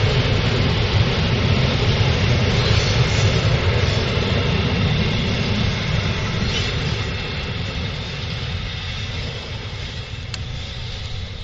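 Covered sliding-wall freight wagons of a paper pulp train rolling past on the rails: a steady rumble of wheels on track that slowly fades as the train goes by.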